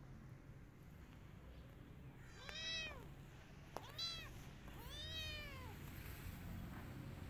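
Young kitten meowing three times, each meow rising then falling in pitch, the last one the longest.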